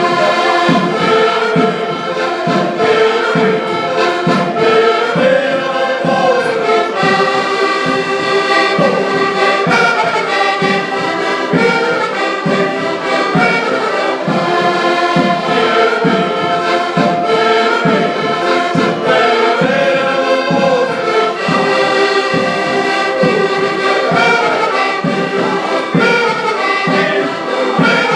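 Band music led by brass instruments over a steady low beat.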